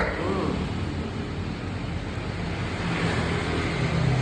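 A motor running steadily with a low hum, with a sharp click right at the start.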